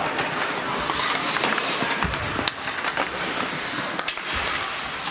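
Ice hockey play: skate blades scraping the ice and several sharp clacks of sticks and puck, over the steady noise of the rink.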